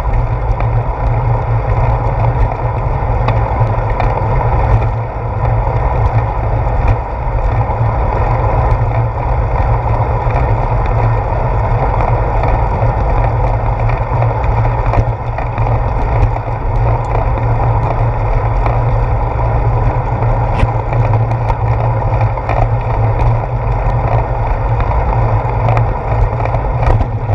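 Wind buffeting and road rumble on a handlebar-mounted action camera on a moving bicycle, a loud steady rush, with frequent small clicks and knocks from bumps in the concrete path.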